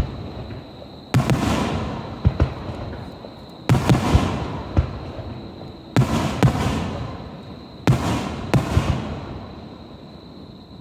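Aerial firework shells bursting overhead: five sudden booms spaced about two seconds apart, each fading out over a second or two, with several sharp short cracks between them.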